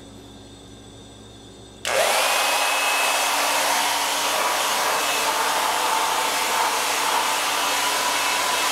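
Handheld blow dryer switched on about two seconds in, then running steadily: a loud rush of air with a high whine that rises briefly as it spins up and then holds steady.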